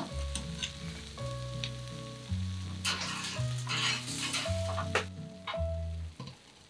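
Freshly grilled salted salmon fillets sizzling as a metal spatula lifts them from a fish-grill rack and sets them on ceramic plates, with a few sharp clicks of the spatula; the sizzle comes in spurts, strongest around the middle. Soft background music with slow, steady low notes runs underneath.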